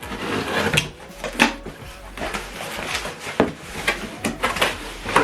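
Objects being handled on a hard surface: a string of irregular knocks and taps, with rubbing and shuffling between them, the loudest knock about a second and a half in.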